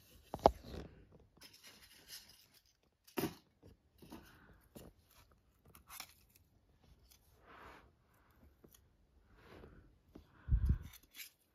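Light handling noises from clear plastic cups and the foam pieces holding rose cuttings being moved by hand: scattered clicks and rustles, with a sharp click about half a second in and a low bump near the end.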